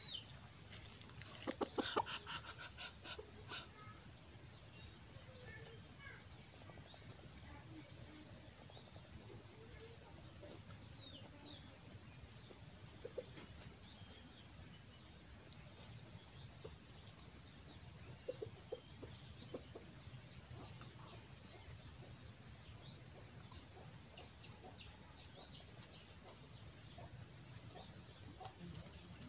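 Outdoor insect chorus: a steady high-pitched buzzing that pulses in a regular rhythm, with a fainter even higher hiss and occasional short falling chirps. A few sharp clicks come about two seconds in.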